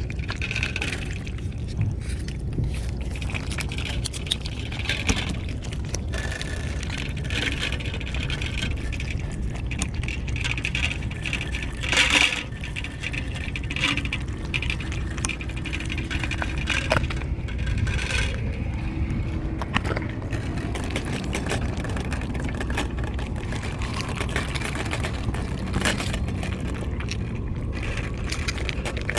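Outdoor ambience with a steady low rumble, scattered small clicks and scrapes, and a louder clatter about twelve seconds in.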